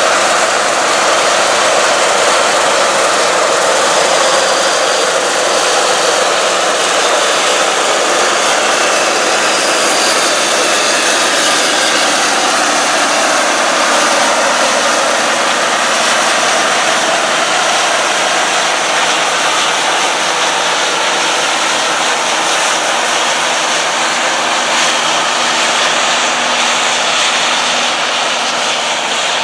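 John Deere combine harvesters running steadily while harvesting soybeans: a constant loud engine and machinery drone with a high whine, and faint whines that slowly rise and fall.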